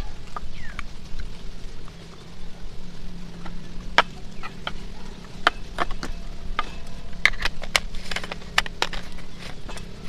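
Objects being handled: irregular sharp clicks and knocks, more frequent in the second half, over a low steady hum and rumble.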